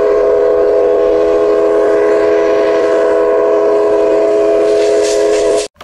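Steam locomotive whistle blowing one long, steady blast that sounds several notes together as a chord, cutting off abruptly near the end.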